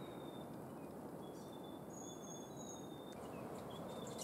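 Quiet forest background hiss with a few thin, high, short held bird whistles.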